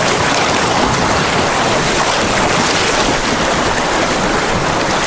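Loud, steady rush of whitewater from the river rapid around the canoe.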